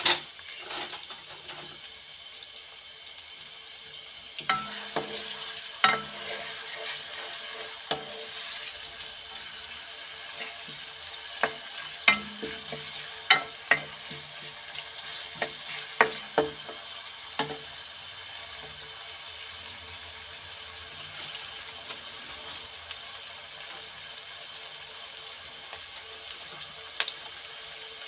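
Sliced onions sizzling steadily in hot oil in a metal kadai. A wooden spoon knocks and scrapes against the pan as they are stirred, in a string of sharp clacks from about four to eighteen seconds in, with one more near the end.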